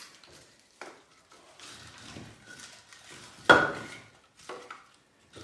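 Split firewood logs being laid in a fireplace, knocking against each other and the iron andirons. A few scattered knocks, with one loud clunk that rings briefly about three and a half seconds in.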